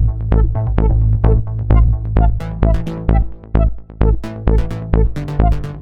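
Electronic dance music with a steady fast beat of about four hits a second over heavy bass.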